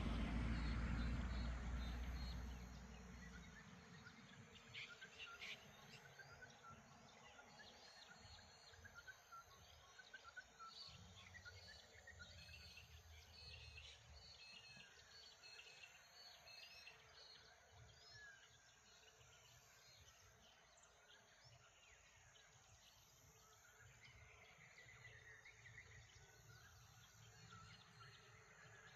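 Several birds make many short chirps and calls in a scattered dawn chorus over a faint, steady background hiss. A low rumble fades out during the first few seconds.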